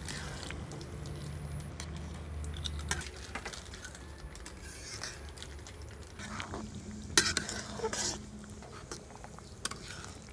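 A long steel ladle stirring fish curry in a steel kadai, clinking against the pan at irregular moments, the sharpest clink about seven seconds in.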